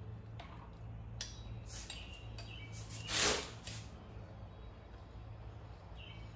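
Light handling sounds as a bicycle pedal is threaded by hand into the crank arm, with a brief louder rustle about three seconds in. Under them run a steady low machine hum and a few short high chirps.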